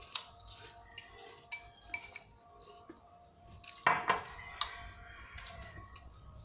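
Chopsticks, a fork and a spoon clinking and scraping against ceramic bowls and plates while eating, with the loudest quick run of clinks about four seconds in.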